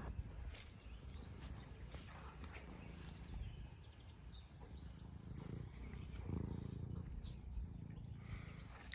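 Faint outdoor ambience: a few short bird chirps over a steady low rumble.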